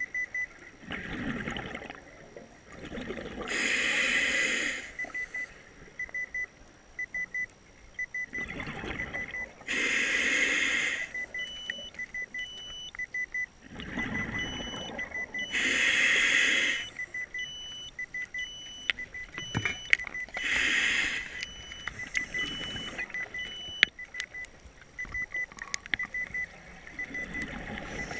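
Scuba diver breathing through a regulator underwater: a hissing inhale, then a loud rush of exhaled bubbles, four times, about every six seconds. Under it a rapid electronic beeping runs on, joined by a slower, higher beep about once a second from about a third of the way in until past the middle.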